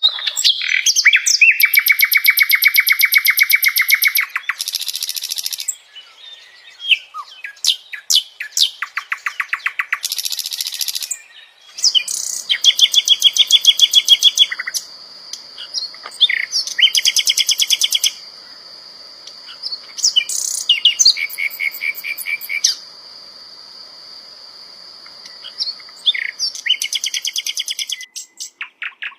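Sikatan londo singing a loud song of rapid trills and buzzy rattled phrases, separated by short pauses. A steady high thin tone runs underneath through the second half.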